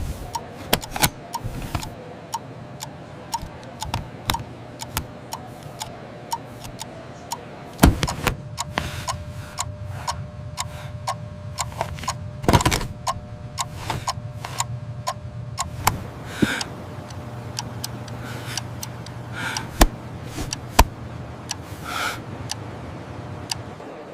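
Clock ticking steadily at about two ticks a second, with louder irregular clicks and knocks among the ticks.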